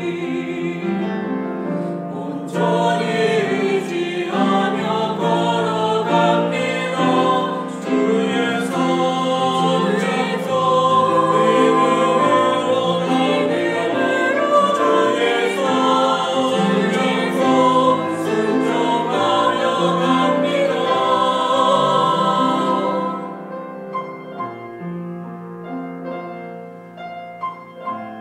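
Small church choir singing a Korean hymn with piano accompaniment. About 23 seconds in the voices stop and the piano plays on alone, more quietly, as an interlude.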